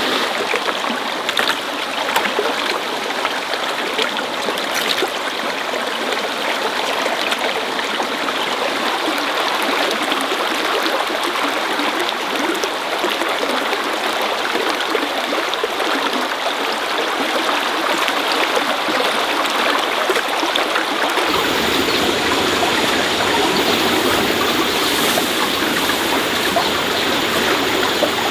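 Running water, a steady rushing flow like a stream. About three-quarters of the way through it suddenly turns fuller and deeper.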